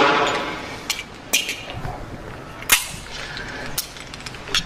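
The reverberation of a single pistol shot fired just before dies away over about the first second. A few sharp clicks or pops follow at irregular intervals.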